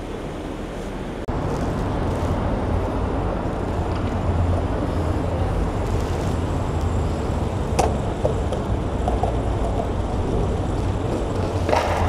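Steady road traffic noise with a low hum. It gets abruptly louder about a second in.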